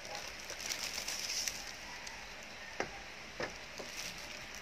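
Quiet background with a steady faint high hiss, and three light clicks: the first a little under three seconds in, the others following over about a second.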